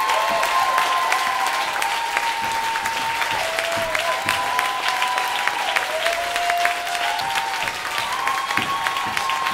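Audience applauding steadily, with a few held, slowly gliding tones sounding above the clapping.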